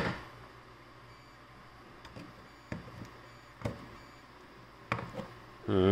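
Pliers clicking and snipping at wires inside a steel surge-protector housing: a sharp click at the start, then a few scattered lighter clicks, and a short pitched sound near the end.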